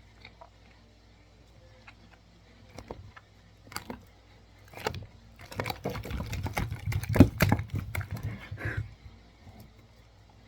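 Runny homemade slime being stirred in its container: a few separate clicks, then about four seconds of irregular sticky clicking and rustling.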